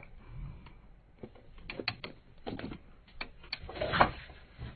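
Scattered clicks and taps of cardboard-and-plastic boxed vinyl figures being handled, with a louder knock about four seconds in.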